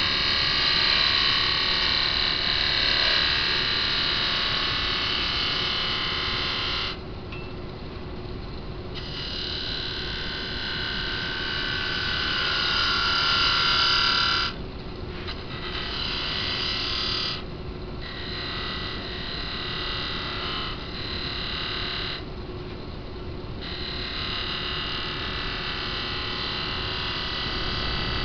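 A wood lathe turning a wooden vase at just over 2000 rpm, with a steady motor hum under it. A turning gouge cuts the spinning wood in several passes of a few seconds each, the cutting noise carrying a ringing tone and stopping abruptly each time the tool is lifted off.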